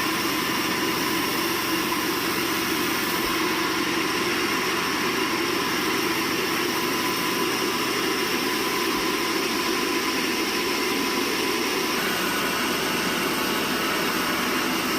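Sawmill machinery running with a steady, even drone and a constant hum.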